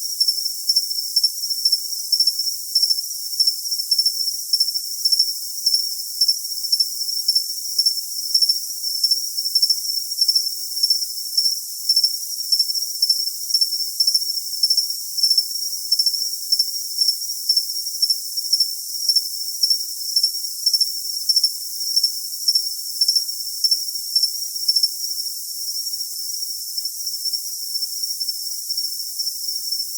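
Cricket chirping steadily: a single high-pitched trill pulsing about twice a second over a faint hiss.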